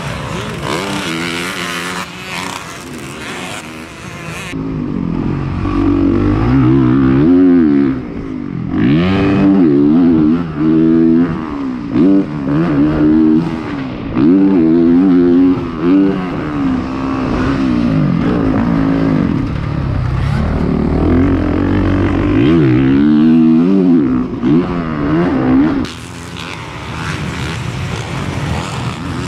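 Dirt bike engine ridden hard around a motocross track, revving high and dropping off over and over: the pitch climbs with the throttle and falls away each time it is shut off. For most of it the engine is heard close up from a camera on the bike.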